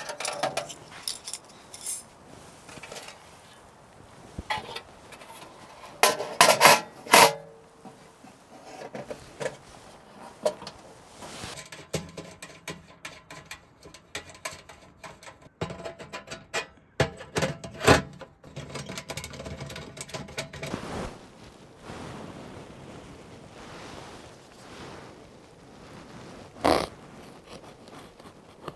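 Portable metal wood stove being handled and assembled: scattered metal clanks, knocks and scrapes, with louder clusters of clatter twice.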